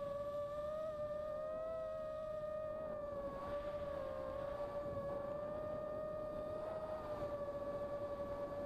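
Motors and propellers of a 285 mm FPV quadcopter whining at a steady high pitch that wavers slightly with throttle, picked up by the onboard camera.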